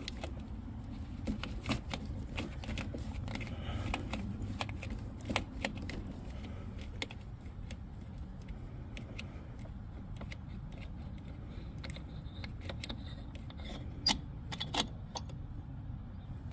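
Scattered light metallic clicks and clinks of hands working the oil catch can and its hose fittings, with two louder clinks near the end, over a steady low rumble.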